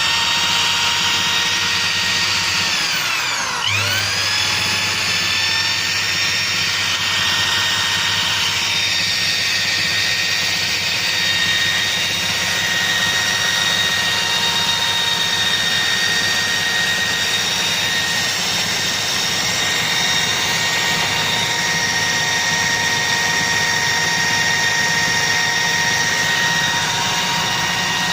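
Wheel grinder running with a steady high whine and a low hum. About three seconds in, its pitch drops sharply and then climbs straight back up to a steady speed.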